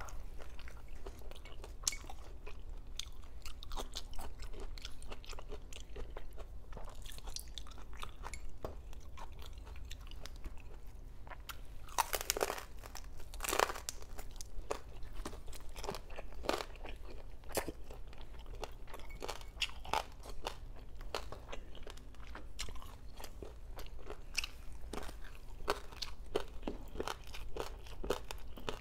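Close-up crunching and chewing of crispy lechon kawali (deep-fried pork belly), with a run of louder crunchy bites about halfway through.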